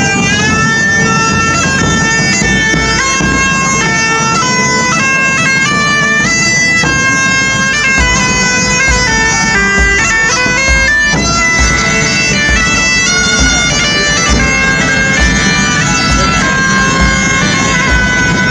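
Bagpipes playing a tune: a melody moving in quick steps over a steady drone.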